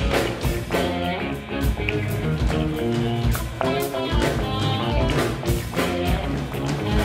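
Live instrumental band music from a trio: electric guitar playing over electric bass and a drum kit with regular drum hits.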